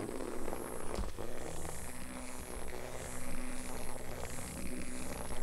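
Small battery-powered wiggling cat toy, its vibration motor buzzing steadily on a carpet, starting about a second in after a couple of knocks from a cat's paw striking it.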